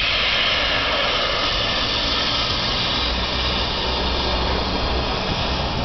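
Ffestiniog Railway double Fairlie steam locomotive standing, hissing steam steadily and loudly.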